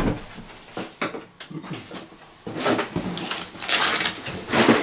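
A paper instruction leaflet and packaging being handled: a sharp tap at the very start and a few light clicks, then rustling and crinkling through the second half.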